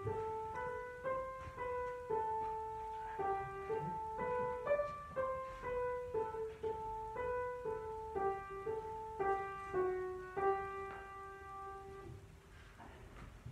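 Piano playing a slow, single-line melody, about two notes a second, each note struck and then fading; the music dies away near the end.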